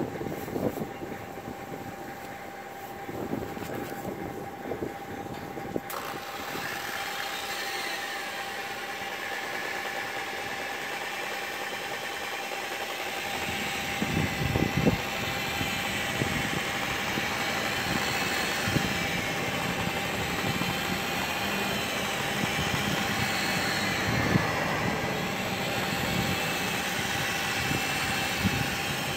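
Electric rotary polisher with a wool buffing pad running against a boat hull. Its motor whine comes in a few seconds in and wavers up and down in pitch as the pad is worked across the hull.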